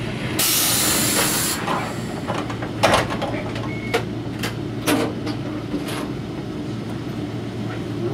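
Toyohashi Railway 3500-series tram standing at a stop: a burst of compressed-air hiss about half a second in, lasting about a second, then a few sharp clicks and knocks over a steady low hum.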